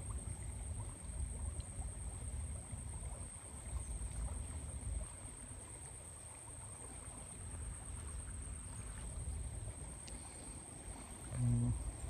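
Faint outdoor water sound from a small spring-fed pool, which is taken to be water welling up from underground, under a low, uneven rumble on the microphone. Near the end comes one brief, louder low hum.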